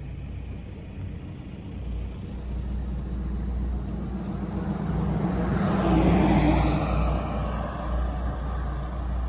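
A road vehicle passing close by on the highway, building to its loudest about six seconds in and then fading. A steady low rumble runs underneath.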